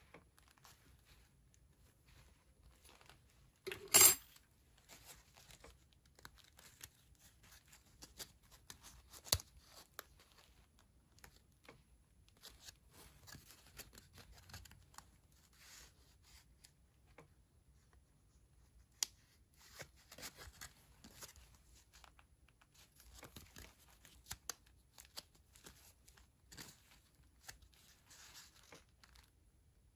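Hands handling small ration items, a metal gripping handle and cardboard packets: faint rustling and scattered light clicks of cardboard and paper. One short, much louder noise about four seconds in.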